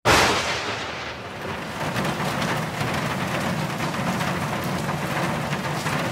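Recorded rain sound effect at the start of the song: a sudden loud crack like a thunderclap that fades over about a second, then steady rain.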